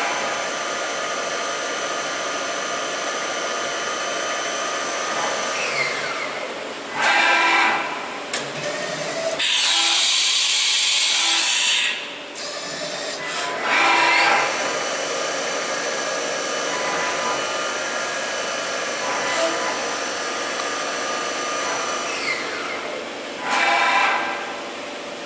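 Mikron-Haas VCE500 CNC vertical machining centre running, with a steady multi-tone whine from its spindle and drives that winds down twice. There are short loud mechanical bursts about three times, and a loud hiss lasting about two seconds near the middle.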